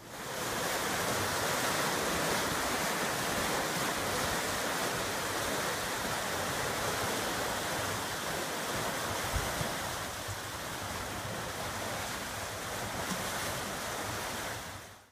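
Turbulent water rushing and churning into a canal lock chamber as the lock fills, a steady rushing noise.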